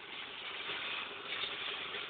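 Steady hiss of a water spray washing down an engine bay, with a faint steady hum underneath.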